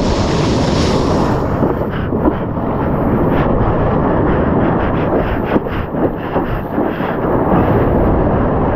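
Steady rush of churning sea water and wind buffeting a waterproof action camera at water level, with a run of sharp splashes in the middle as a hand paddles through whitewater.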